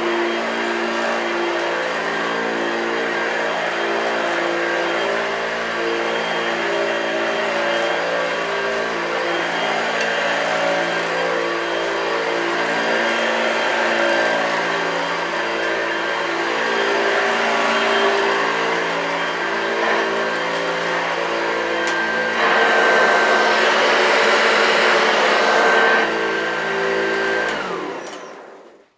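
1982 Hoover Junior U1104 upright vacuum cleaner running steadily, with a stretch of louder hiss a few seconds before the end. It is then switched off and its motor winds down, the pitch falling until it stops.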